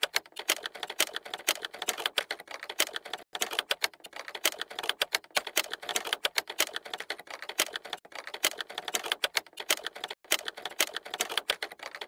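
Rapid, irregular typewriter-style typing clicks, with a couple of brief pauses.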